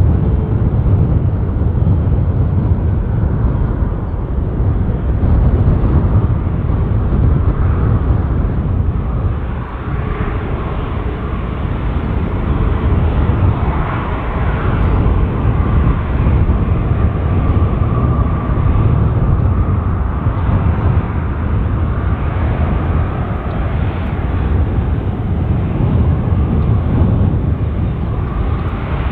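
Jet airliner engines rumbling steadily as a plane comes in to land, with a faint engine whine partway through.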